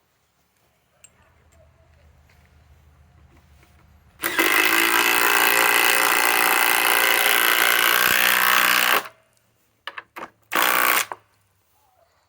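A Masterforce Boost cordless drill spins up and runs under load for about five seconds, boring into wood, then stops. Two quick blips of the trigger and one short burst follow.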